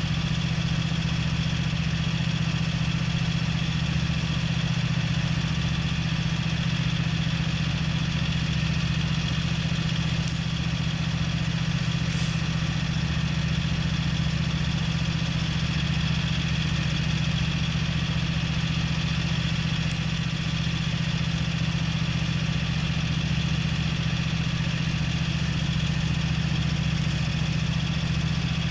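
Gravely ZTx 42 zero-turn riding mower's engine running steadily at a constant speed.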